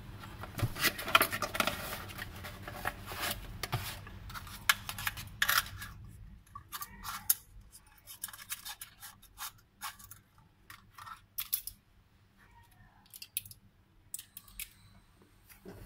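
Cardboard box and plastic lamp being handled: dense rustling and scraping for the first several seconds, then sparser clicks, taps and scrapes as the lamp is handled and fitted into its socket.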